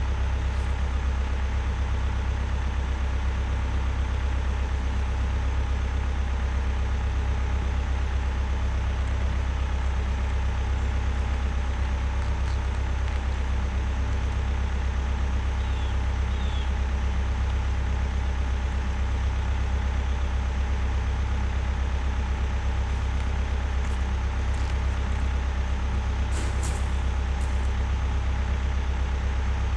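Bobcat T190 compact track loader's diesel engine running steadily at a constant speed, with a few faint clicks near the end.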